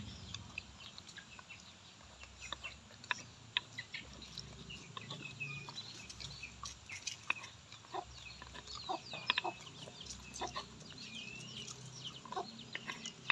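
Quiet eating sounds: chewing, lip smacks and clicks of a spoon against a clay bowl. Chickens cluck and high short chirps come and go in the background.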